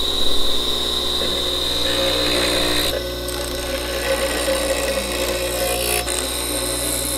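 Bench grinder running with a steady hum and high whine while a metal bushing is held against its wheel, grinding off burrs and trimming the edges. The whine drops out about three seconds in and the grinding goes on a little quieter.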